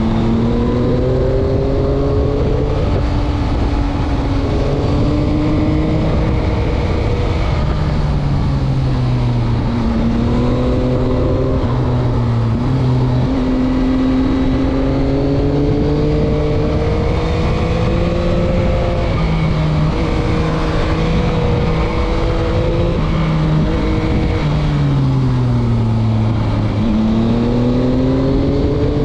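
2021 Yamaha MT-09's three-cylinder engine pulling and backing off through a string of corners, its pitch rising and falling over and over, with two deep dips, about nine seconds in and near the end, each followed by a climb back up.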